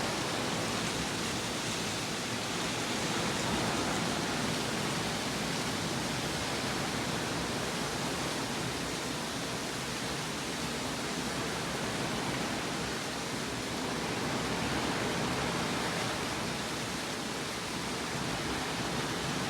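Steady, even rushing noise with no breaks or sudden sounds.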